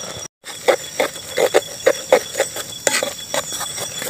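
Irregular knocks and clinks of a metal camp pot and its wire bail handle as the boiling rice pot is lowered over the campfire and stirred, about three or four knocks a second for a few seconds.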